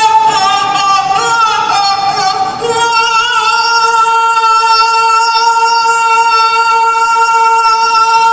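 A woman's high singing voice, wavering through several notes for the first three seconds, then holding one long steady note for about five seconds.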